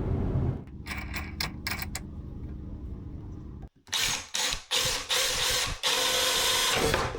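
A handful of sharp mechanical clicks, then several bursts of a cordless drill driver running, the last and longest lasting about two seconds.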